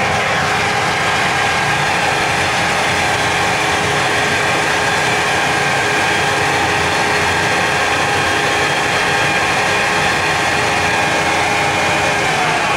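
A machine running steadily: a continuous loud noise with several steady whining tones over it, which begin to drop in pitch near the end.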